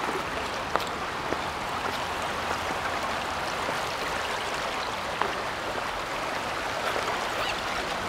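Shallow river water rushing and babbling steadily around stone stepping stones, with a few brief clicks about a second in and again about five seconds in.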